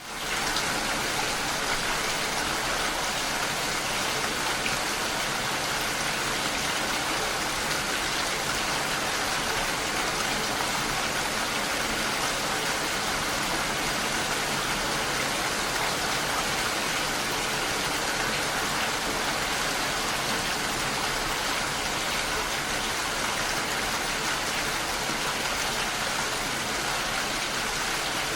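Steady rain falling, a dense, even hiss of drops that rises quickly out of silence at the very start and then holds constant.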